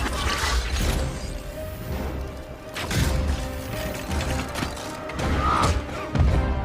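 Background music with a heavy, pulsing beat.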